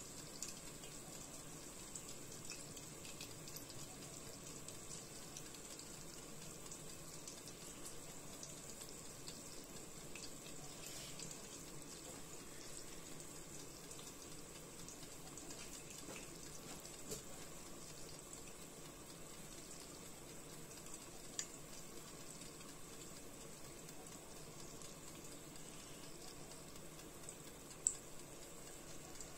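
Buns frying in shallow oil in an electric pan: a quiet, steady sizzle with fine crackling and a few sharp oil pops, the loudest near the end.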